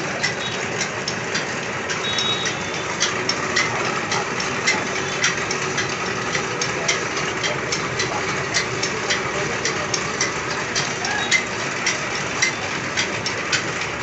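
Workshop noise: an engine running steadily, with irregular sharp metallic clicks and taps over it.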